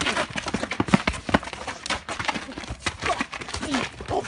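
Scuffle of a fist fight on pavement: feet stepping and scuffing and irregular slaps and thuds of blows and grappling bodies, as one fighter is taken to the ground. There are a few short grunts or cries near the end.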